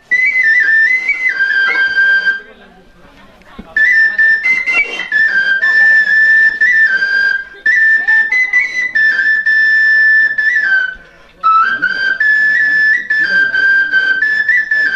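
Melody played on a short end-blown flute (basari): a high, clear line moving in short steps, phrase after phrase, with two pauses for breath, about three seconds in and again about eleven seconds in.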